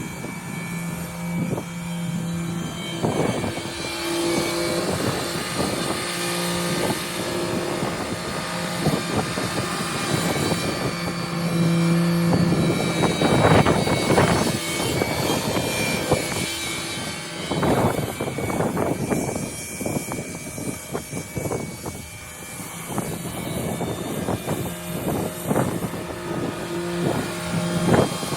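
Tractor engine running while clearing snow, with a steady hum whose pitch comes and goes and frequent clanks and knocks throughout.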